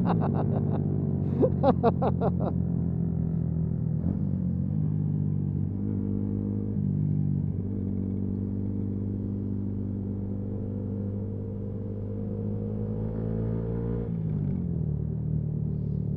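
Yamaha MT-125's single-cylinder four-stroke engine running under way on the road, its pitch stepping up and down with gear changes and settling lower near the end. A rapid stuttering rattle sounds over it in the first couple of seconds.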